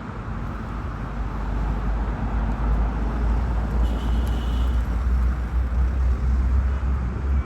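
Steady low rumble of jet airliner engines, heard at a distance, mixed with background traffic noise. A brief faint high chirp comes about four seconds in.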